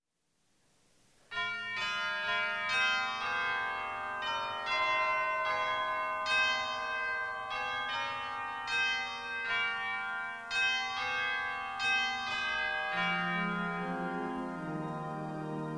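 Church keyboard music, likely the organ, starting about a second in: a slow melody of bell-like, chiming notes over lower held tones. It is the introduction to the sung psalm that follows the reading.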